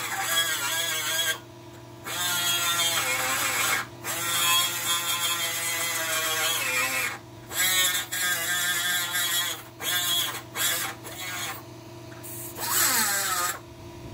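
Die grinder with a carbide burr grinding rusted steel of a car's frame rail. It runs in bursts of one to three seconds with short pauses, its whine wavering up and down in pitch as the burr bites.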